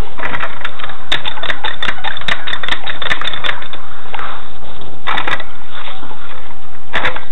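Steel scissor jack being cranked up under a car to meet the sill's pinch weld: quick runs of metallic clicking and rattling from the screw and arms, in several spurts with short pauses.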